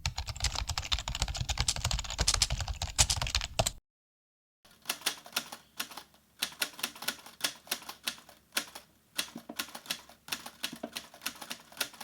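Computer keyboard typing, as two separate clips. The first is a dense, rapid run of keystrokes with a deep thock for about four seconds. After a brief silence comes a lighter burst-and-pause typing rhythm of crisp key clicks.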